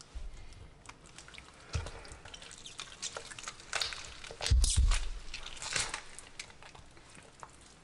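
Wet tearing and squelching of raw fish as a tautog's gills and throat are pulled apart by hand, with scattered small clicks. A dull thump about four and a half seconds in is the loudest moment.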